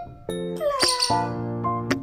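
Background music with piano-like chords, over which a pet lovebird gives a short burst of shrill chirps a little under a second in.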